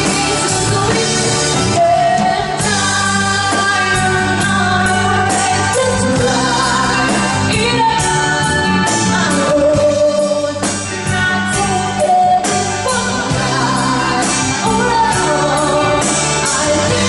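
A band playing a song, with a lead singer's melody over a steady beat.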